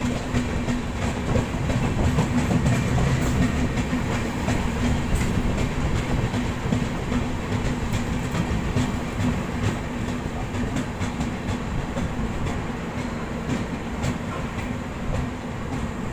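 Express passenger train running at speed, heard from an open coach doorway: a steady rumble and rush with wheels clattering over the rail joints, easing a little near the end.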